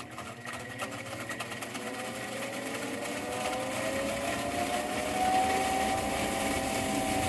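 Furnace combustion blower (draft inducer motor) spinning up, its whine rising in pitch and growing louder, then holding steady about five seconds in. An uneven sloshing rattle runs under it: water trapped in the blower housing, the abnormal noise behind the no-heat call.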